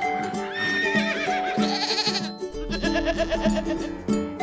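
Background music with a bleating goat or sheep sound effect laid over it, wavering calls in the first half and again about three seconds in.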